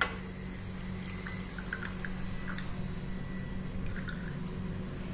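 Onion juice squeezed through a cotton cloth, dripping in a few small, scattered drips over a steady low hum.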